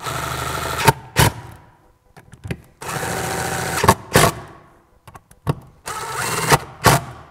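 A cordless drill/driver with a socket extension runs stator mounting bolts into an aluminium engine cover in three short bursts of steady motor whirring. Each burst ends with a couple of sharp clicks as the bolt seats.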